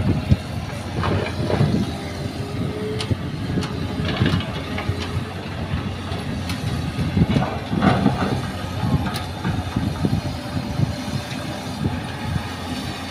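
Hitachi hydraulic excavator's diesel engine running steadily under load. Bursts of rattling clatter come from soil and rock tipped from its bucket into a dump truck's steel bed near the start, with more clatter about four seconds in and around the middle as the bucket works.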